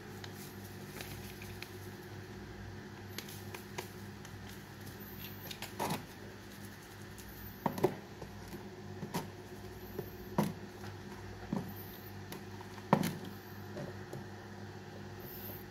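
A clear plastic tub being handled and its plastic lid fitted and pressed shut: a string of sharp clicks and knocks, the loudest in the second half, over a steady low hum.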